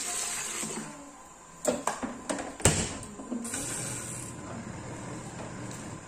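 Water poured from a plastic basin into the tub of a Union UGWM-20 mini washing machine, then several sharp plastic knocks as the lid is handled and shut. A steady low hum follows for the last couple of seconds.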